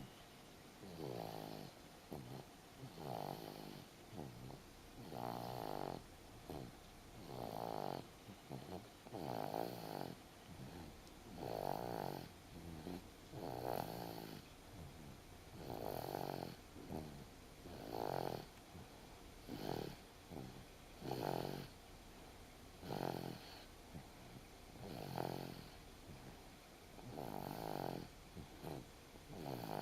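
Snoring in sound sleep: a steady rhythm of rasping snores, one about every two seconds, with softer breaths between.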